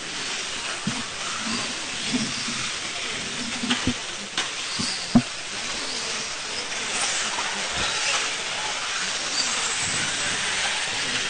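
Radio-controlled 4WD race cars running on the track, heard as a steady hiss of motors and tyres, with a few sharp knocks about four and five seconds in.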